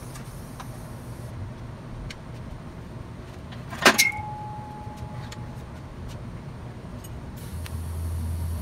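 One sharp metal clank about four seconds in, with the steel ringing briefly, as the steel post and its welded-on plate flange are handled. Near the end a TIG welding arc is struck and runs with a low, steady buzzing hum that grows louder.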